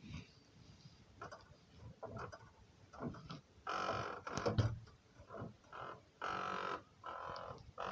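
Thin-sheet steel entrance door creaking on its hinges as it is swung open and shut: a series of squeals, short and drawn-out, the loudest about four and six and a half seconds in. It creaks although its hinges have just been greased.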